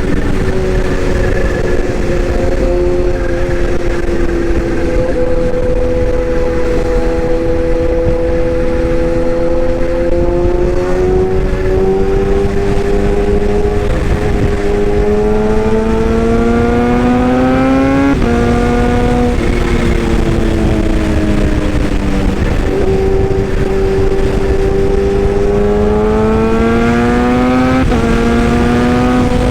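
A motor vehicle's engine running under load. Its pitch climbs slowly and drops suddenly twice, like gear changes.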